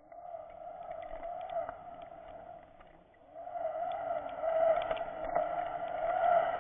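A boat's motor heard underwater: a steady, slowly wavering hum with overtones, growing louder about three seconds in, with a few faint clicks.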